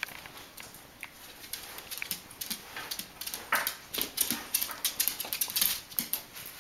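Yorkshire Terrier's claws clicking and tapping on a tile floor as she hops about on her hind legs, quick irregular taps that get busier and louder from about three and a half seconds in.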